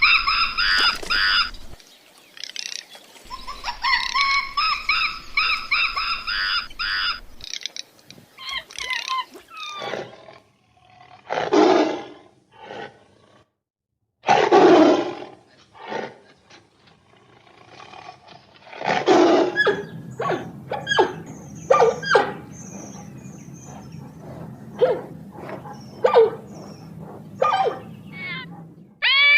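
A series of animal calls from different clips. High pitched, repeated calls come in the first few seconds. Two loud, harsh calls follow around the middle. Short scattered calls over a low hum fill the last part.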